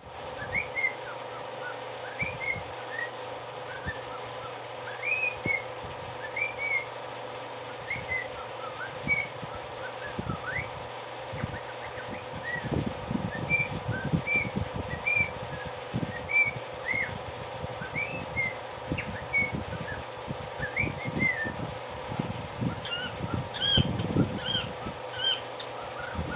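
A small animal giving short, high, rising chirps over and over, about one or two a second, over a steady electrical hum. In the second half come soft knocks and rustles, and near the end the chirps grow louder and higher.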